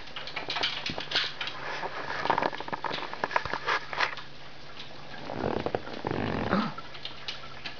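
A kitten's paws and claws tapping and scrabbling against the glass of a fish tank: a run of quick light taps, then two longer, duller rubbing bumps about five and six seconds in.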